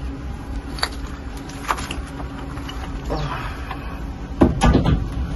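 Top cover panel of an Acson Ecocool air-conditioner outdoor unit being lifted off and set down: a few light clicks, then a louder knock and clatter about four and a half seconds in, over a steady low hum.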